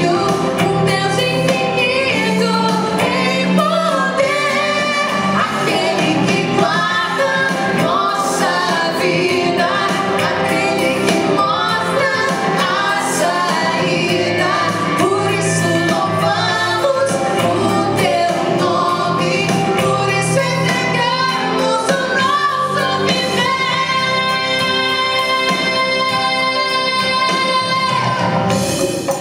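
Worship choir with male and female lead singers singing a praise song live with instrumental accompaniment. Near the end the voices hold one long chord.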